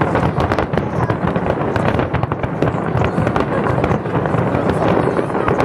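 Fireworks barrage: many aerial shells bursting in quick succession, with dense overlapping bangs and no let-up.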